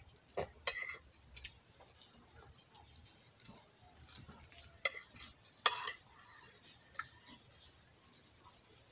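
Metal spoons clinking and scraping against a plate and a plastic bowl while eating, in scattered short taps; the loudest comes a little under six seconds in.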